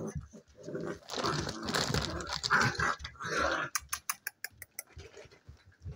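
Seven-week-old spaniel puppies play-fighting, making short vocal noises in irregular bursts, with a quick run of light clicks a little before two-thirds of the way through.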